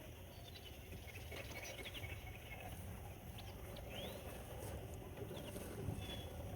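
Faint scattered bird chirps and short whistles, one rising near the middle, over a steady low rumble.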